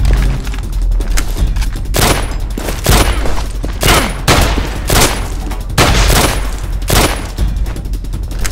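Film sound-effect gunfire: a deep boom at the start, then from about two seconds in a string of single gunshots, roughly one every 0.7 s, over a low rumble.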